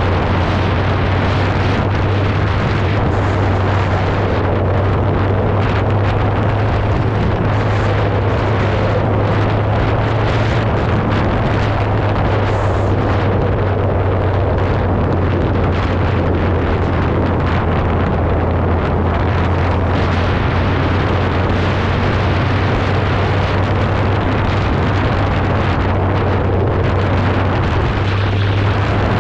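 Suzuki Hayabusa's inline-four engine running steadily at cruising speed, heard from the rider's seat under a constant rush of wind and road noise.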